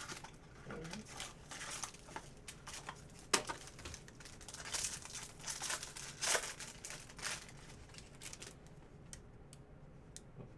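Packaging crinkling and tearing as a pack of baseball cards is opened by hand, a run of rustles and crackles that thins out after about seven seconds into a few light clicks of the cards being handled.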